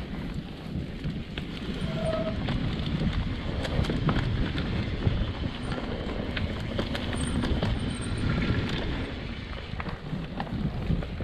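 Wind rushing over the microphone and tyres rolling over a dirt trail on a downhill mountain bike descent, with scattered clicks and rattles from the bike.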